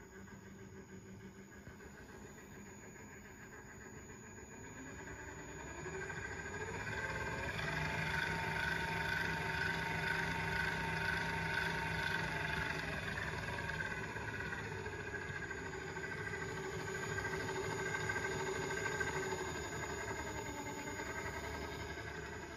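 The 24 V DC motor of a BY-10 welding positioner is running and turning the table, with a whine that changes as the speed knob is turned. About five seconds in, the whine rises in pitch and gets louder, and it holds there for several seconds. It then drops back and wavers up and down again as the speed is lowered and raised.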